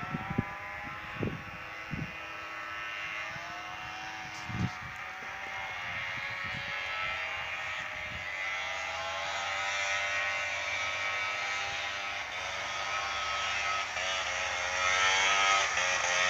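Vintage two-stroke snowmobile engines buzzing in the distance, their pitch rising and falling with the throttle and growing louder as the sleds come closer near the end. A few low thumps in the first five seconds.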